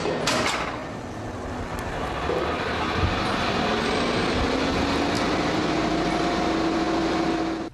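Elevator car in motion: a steady mechanical rumble with a whine that slowly rises in pitch from about two seconds in, cutting off suddenly at the end.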